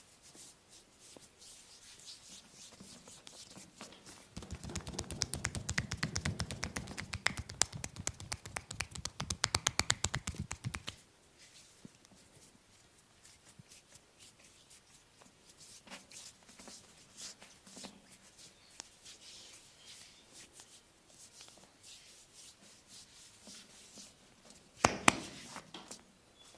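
Massage hands striking bare skin in a fast, even patter of percussive blows for about six seconds, then quieter scattered hand-on-skin sounds, and two sharp cracks close together near the end.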